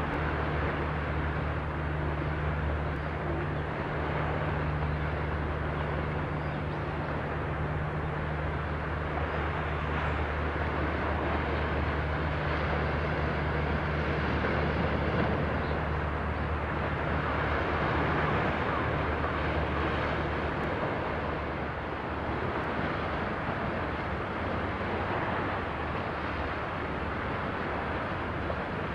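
A steady low engine hum under a continuous outdoor rushing noise. The hum fades out about two-thirds of the way through.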